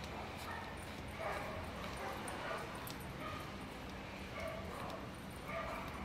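A dog whimpering and yipping, short high calls repeated about once a second.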